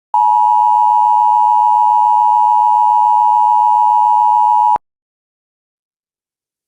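Emergency Alert System attention signal: a steady two-tone beep just under 1 kHz, held for about four and a half seconds and cut off abruptly. It announces a severe thunderstorm warning.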